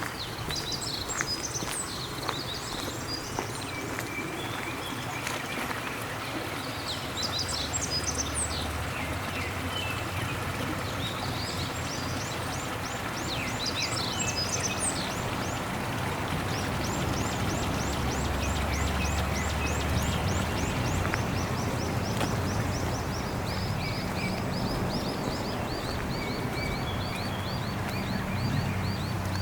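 Several wild birds singing and chirping in short high calls. About halfway through, one bird starts a long, fast trill that slowly drops in pitch and keeps going.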